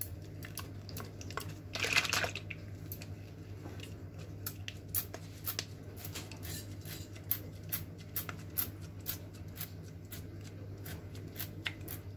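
Seasoning shaken from a shaker, the grains landing on a metal roasting tin in quick irregular clicks, with a louder rustling shake about two seconds in. A low steady hum runs underneath.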